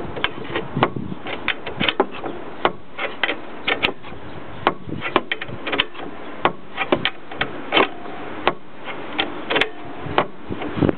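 Irregular sharp metallic clicks and knocks, several a second at uneven spacing, from hand tools and steel parts being worked on a Jeep's Dana 30 front axle, over a steady background hiss.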